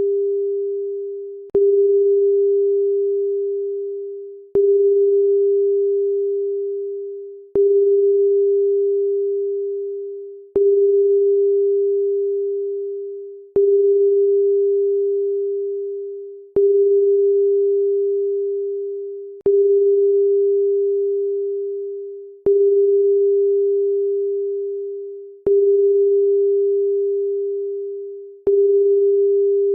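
Electronic pure tone of about 400 Hz, repeated about every three seconds. Each one starts abruptly with a click and fades away before the next, ten times over.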